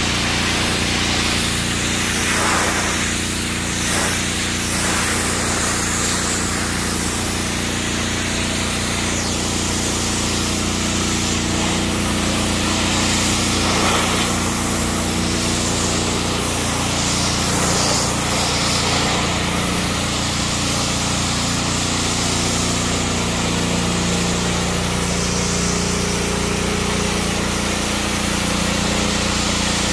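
Pressure washer running with a steady hum, its jet hissing against the truck's hood as the spray is worked across the sheet metal.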